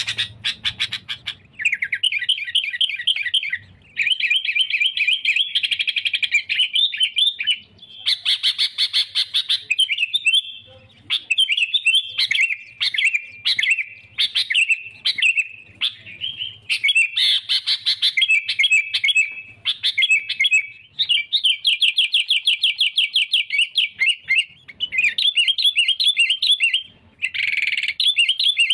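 Sooty-headed bulbul (kutilang) singing almost without a break: quick, bubbly, chattering phrases with only short pauses, including a run of fast repeated notes past the middle. It is the vigorous rival-challenging song used as a lure for wild bulbuls.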